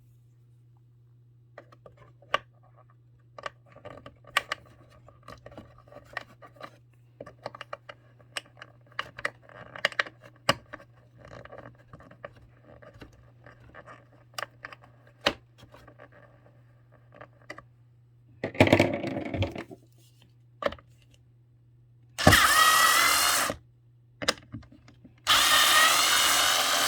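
Light clicks and taps of handling small parts and screws, over a faint steady low hum. A battery-powered screwdriver then whirs in two short runs and a longer run near the end, backing out screws.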